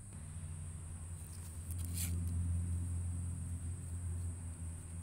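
Low, steady hum of an engine running, louder from about a second and a half in and easing toward the end. A constant high-pitched whine sits underneath, and there is a short scratchy noise about two seconds in.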